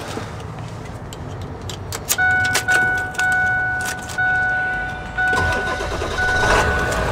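Ignition keys jangle and click in a 2000 Ford Excursion's lock. About two seconds in, a dashboard warning chime starts dinging, roughly once a second, with the driver's door open. Around five seconds in, the 7.3-litre diesel V8 cranks and catches, and a low engine rumble builds towards the end.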